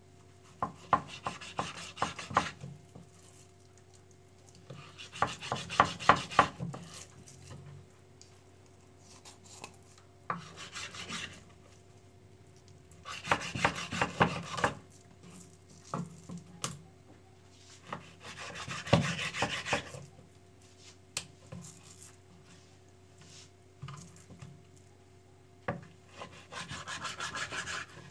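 Kitchen knife sawing through a raw salmon fillet on a wooden cutting board, in about six bouts of quick back-and-forth strokes, each a second or two long, with a few single knocks of the blade on the board between them.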